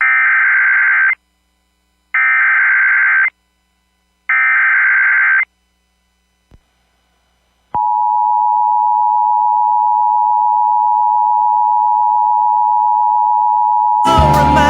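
Emergency Alert System SAME header: three screeching data bursts about a second long, a second apart. After a short pause, the two-tone EAS attention signal starts about eight seconds in and holds steady, marking the start of a new emergency alert. Another loud sound briefly joins the tone near the end.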